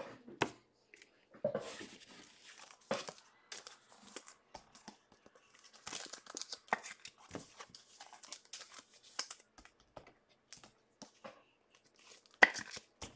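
2021 Bowman baseball card pack wrappers being torn open and crinkled, with irregular rustles and scattered sharp clicks.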